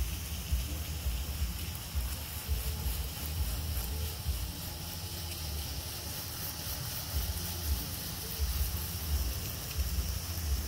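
Water spraying from a garden hose nozzle onto bare soil and asphalt, a steady hiss, with gusts of wind rumbling on the microphone.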